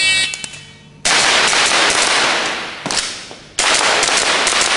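A shot timer's start beep, then an airsoft pistol firing rapid strings of shots that blur together: one string about a second in, a single shot near three seconds, and another string about 3.6 seconds in, each trailing off in echo.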